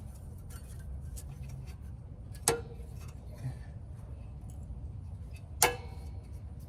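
Two sharp metallic clicks about three seconds apart, each with a brief ring, as steel brake pad retaining clips are handled and fitted into the caliper bracket, over a steady low rumble.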